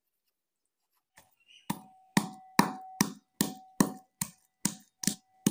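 Garlic cloves being pounded in a metal bowl: a steady run of sharp knocks, about two and a half a second, starting after a second and a half of silence, with the bowl ringing after each strike.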